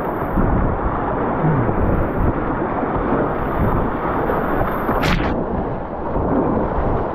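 Whitewater rapids rushing and splashing around a racing kayak, heard close up as a loud, dense rumble, with waves washing over the bow. A short sharp hiss comes about five seconds in.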